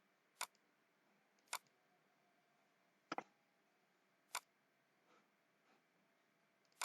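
Five separate sharp computer mouse clicks over near silence, one of them a quick double-click about three seconds in.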